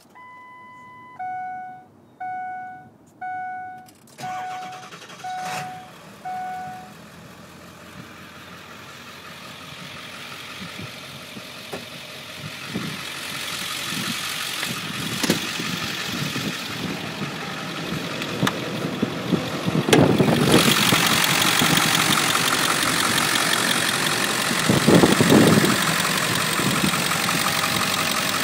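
A dashboard warning chime rings repeatedly for the first six seconds or so. Then the 2002 Ford F-350's 7.3-litre Powerstroke turbo-diesel V8 idles, growing steadily louder and loudest over the last several seconds.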